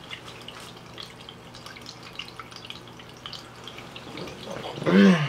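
Quiet room tone with faint scattered ticks, then, near the end, a short loud groan from a man tossing in bed under the covers.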